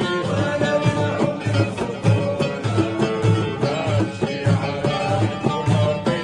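Music led by plucked string instruments over a steady low beat of about two pulses a second, with a melody that slides up and down in pitch.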